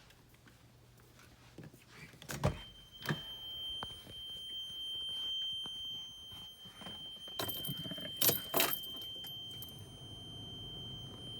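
A heavy thump, then a steady high electronic warning tone from the vehicle that holds to the end, with clunks and rustling about two-thirds of the way through. The tone is the kind a vehicle gives with a door open or the key in, just before the engine is started.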